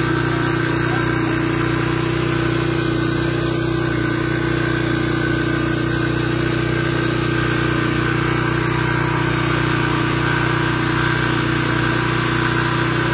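An engine running steadily at a constant speed, a continuous hum that holds one pitch without revving or changing.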